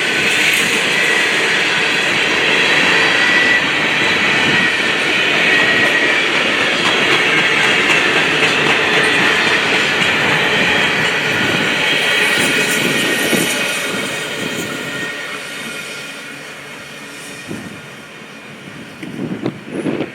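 Freight train cars rolling past on steel wheels, a steady rumble and rattle with a high wheel squeal. The noise fades away over the second half, and a few short thumps come near the end.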